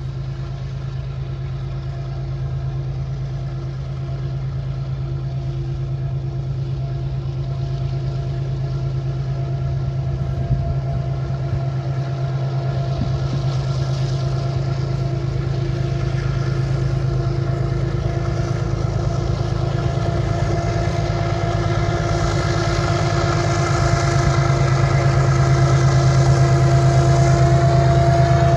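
Freight train passing, its diesel locomotive engine running with a steady drone and the wagons rumbling on the rails, growing slowly louder as it comes closer.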